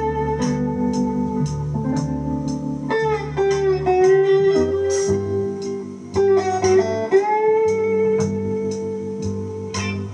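Slow blues on an electric guitar played with a bottleneck slide: notes slide up into long held tones over a repeating low bass figure, with a steady tick about twice a second.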